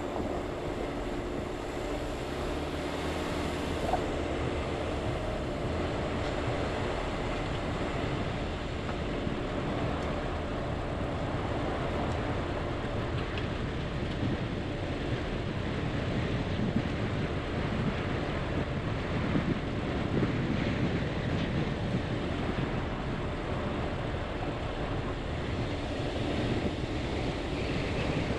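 A car driving on a dirt road: steady engine and tyre noise, with a few small knocks.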